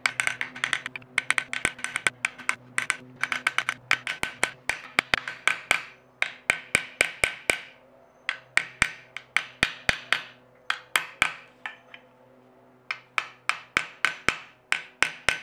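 Cross peen hammer tapping quickly on brass pins through a knife's brass bolsters, peening (mushrooming) the pin heads to rivet the bolsters to the blade, with the work resting on an anvil. Light, sharp taps come several a second, with a pause of about a second near the end.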